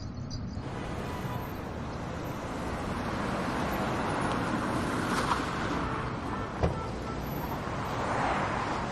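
Road traffic: a car's engine and tyre noise swelling and easing as it drives, with two short sharp clicks in the middle.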